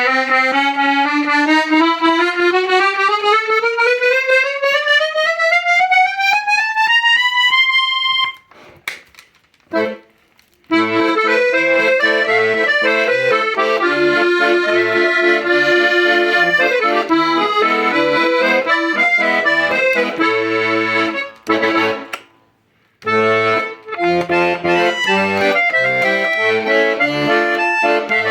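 Hohner Student IV M accordion being played. First a single treble note climbs steadily up the keyboard for about eight seconds. After a short break comes a tune of right-hand chords over rhythmic bass notes, with a brief pause about two-thirds of the way in.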